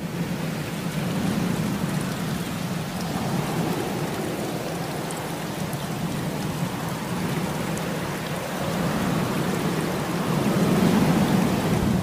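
Steady, dense rushing of water with a low rumble underneath, cutting in and out abruptly and growing a little louder near the end.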